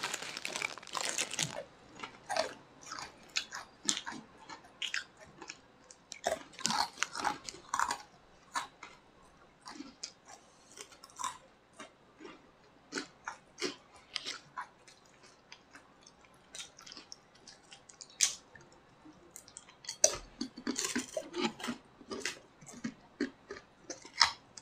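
People chewing and crunching crisp snacks at close range: short, irregular crunches, busier about a quarter of the way in and again near the end.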